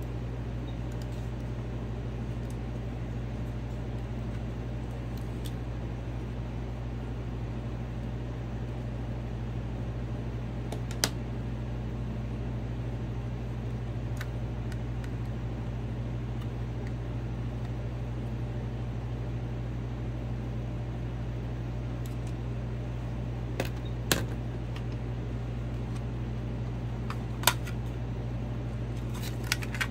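Steady low background hum, broken by a few sharp plastic clicks as a small cassette player and a cassette case are handled, most of them in the last several seconds.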